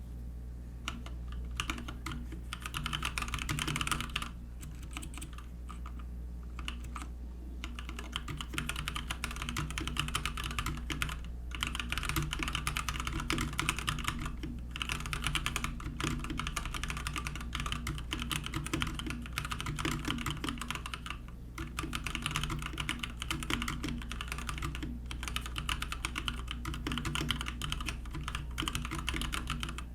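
Fast, continuous typing on a Keychron K6 compact wireless mechanical keyboard with tactile switches: a dense run of key clicks and clacks, broken by short pauses about 4, 7, 11, 14, 21 and 25 seconds in. A steady low hum runs underneath.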